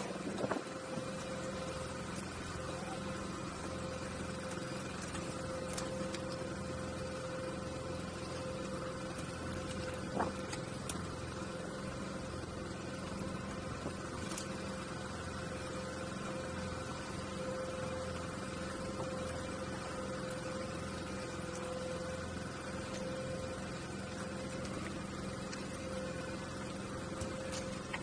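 A boat's outboard motor idling steadily, with an occasional faint knock.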